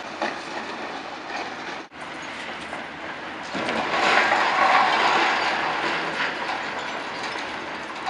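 Demolition noise from a high-reach demolition excavator working the top floor of a concrete building: grinding and clattering of broken concrete and rubble. It cuts out briefly about two seconds in and grows louder for a few seconds after the middle.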